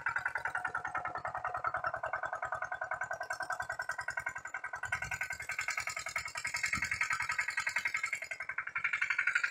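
Lombardini LDA96 single-cylinder air-cooled diesel on a Pasquali two-wheel tractor running steadily under load while working the soil, an even rapid beat with a ringing metallic tone over it.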